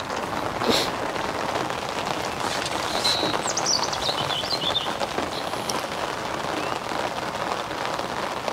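Heavy rain falling steadily on a fishing umbrella and the lake.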